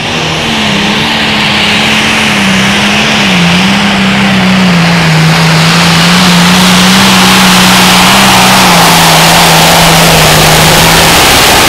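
Turbocharged diesel engine of a John Deere limited pro stock pulling tractor running at full power while it hauls the weight sled, with a dense, loud exhaust-and-turbo roar. It gets louder over the first few seconds as it comes closer, and its engine note sags slowly under the load.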